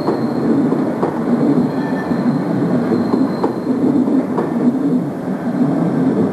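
Passenger coaches rolling past close by: a steady rumble of wheels on the track, broken by a few sharp, irregular clacks as the wheels cross rail joints.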